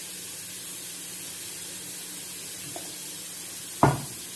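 A steady hiss, with one sharp knock near the end as a kitchen utensil or cup is knocked against the bowl or worktop while water is being sprinkled onto couscous.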